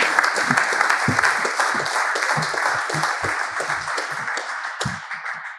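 Small audience applauding, loud at first and dying away near the end.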